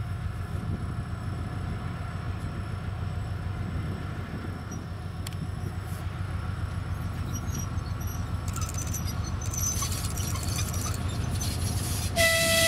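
2TE10M diesel locomotive's two-stroke 10D100 engines running with a steady low drone as the freight train approaches, growing louder, with faint wheel squeaks and clicks from about eight seconds in. Near the end the locomotive's horn starts a loud, steady blast.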